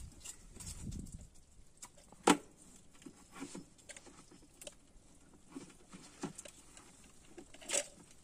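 Scattered light taps, clicks and patter as a cylindrical shrimp trap is handled and shaken while water drips from it, with a louder knock about two seconds in and another near the end.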